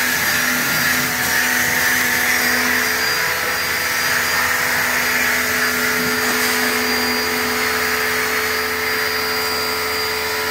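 APR AP73 electric jet cleaner (pressure washer) running steadily while spraying snow foam: a constant motor hum under the hiss of the spray.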